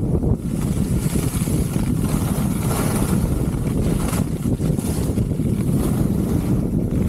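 Wind rushing over the microphone at skiing speed, a heavy low buffeting, with the hiss and scrape of skis carving across packed snow.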